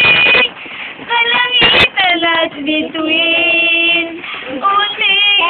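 Young girls singing, with long held notes that glide up and down. A single sharp click under two seconds in.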